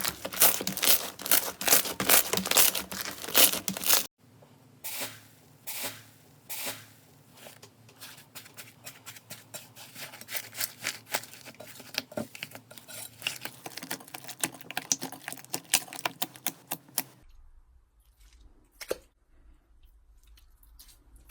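Slime being handled, giving crisp crackling and popping: dense and loud for about four seconds, then sparser crackles and pops, dropping to a few faint clicks near the end.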